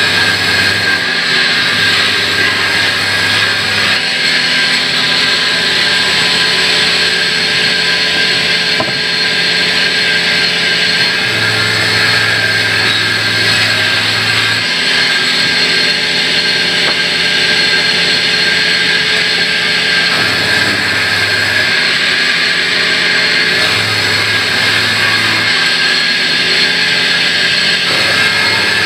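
Sawmill band saw running and cutting through a log: a loud, steady mechanical whine and hiss, with a low hum that cuts in and out every few seconds.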